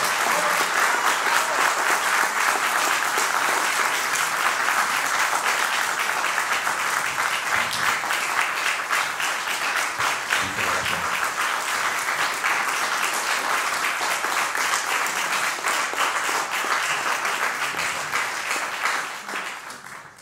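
Audience applauding, sustained clapping that tapers off near the end.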